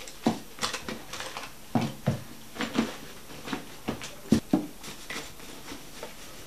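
Rummaging: irregular rustles, clicks and small knocks as hands handle objects in a bag.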